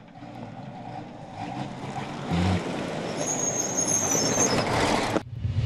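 MAN rally truck driving past close by on a dirt track, engine and tyre noise growing steadily louder as it approaches. The sound cuts off abruptly near the end.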